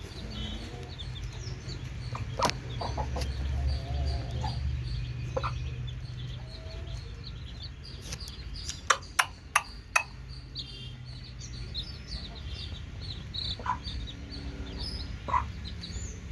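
Parrot-nose Aseel chicks peeping over and over in short, high chirps, with some chicken clucking. Four sharp clicks come close together about nine to ten seconds in.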